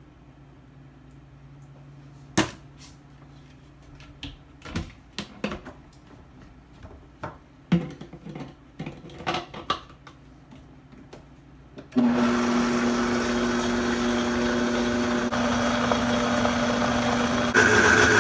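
Scattered clicks and knocks as the lid is fitted onto a Vitamix blender container. About two-thirds of the way in the Vitamix motor starts suddenly and runs steadily, grinding toasted sesame seeds and olive oil into tahini paste. Near the end it gets louder and higher as the speed goes up.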